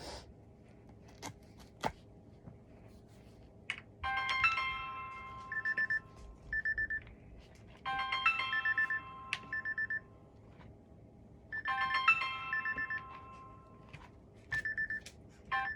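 Mobile phone ringtone playing: a short chiming melody that repeats about every four seconds, three times, each followed by a string of quick beeps, as an incoming call rings before it is answered.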